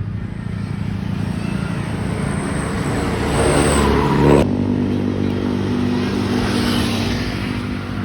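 Bus engine running close by, growing louder to a peak about four seconds in, then switching abruptly to another steady engine drone.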